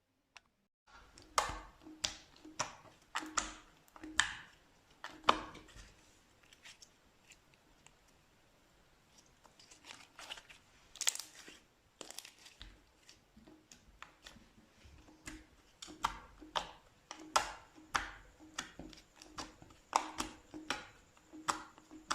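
Slime being squeezed and poked by hand, making a run of sharp wet pops and clicks several times a second as air pockets burst. The pops start about a second in, thin out in the middle and come thickly again near the end.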